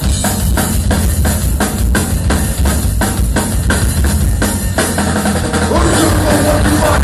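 Live thrash metal band launching into a song: a drum kit pounding out fast, even bass-drum and snare hits over a loud, dense low band sound, starting abruptly.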